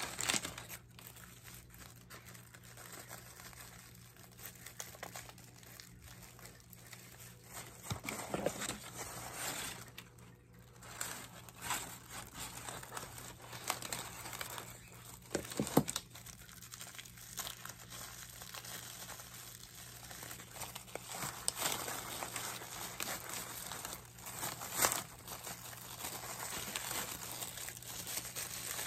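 Plastic wrapping and brown kraft packing paper crinkling and rustling as a potted plant is unwrapped by hand, with some tearing and a few sharp clicks.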